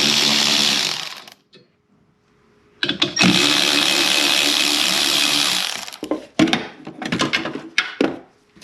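Power tool with a 15 mm socket spinning off nuts in two runs of a few seconds each, with a short pause between. Small metal clinks and clicks follow as the parts are handled.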